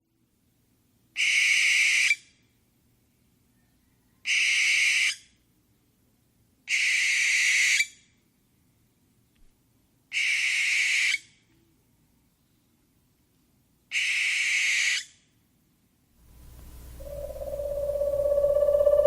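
Owl giving five harsh, hissing screeches, each about a second long and a few seconds apart. Near the end a steady tone fades in and grows loud.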